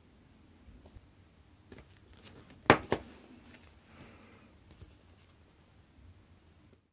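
Small handling sounds from work at a watchmaker's bench on a chronograph movement in its holder. About two and a half seconds in come two sharp clicks, a quarter second apart, which are the loudest sound.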